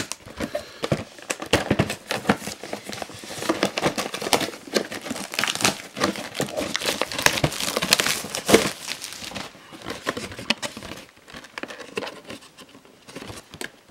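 Clear plastic shrink-wrap being torn and crumpled off a cardboard trading-card collection box: dense crinkling and crackling that thins out about ten seconds in.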